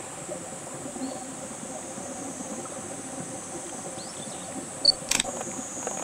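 Small shallow stream trickling steadily over stones, with a steady high insect drone behind it. About five seconds in, a camera shutter gives a sharp, loud click.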